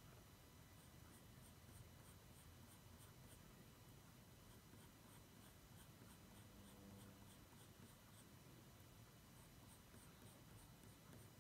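Coloured pencil scratching faintly on drawing paper in runs of quick, short shading strokes, with brief pauses between runs.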